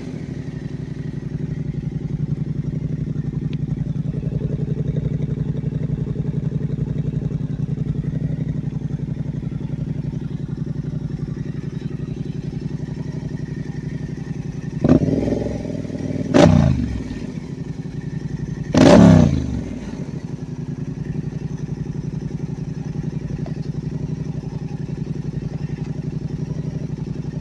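Yamaha Ténéré 700's parallel-twin engine idling through an FMF slip-on exhaust, with the catalytic converter removed and the exhaust open. In the second half come three short throttle blips, each revving up and dropping back to idle; the last blip is the loudest.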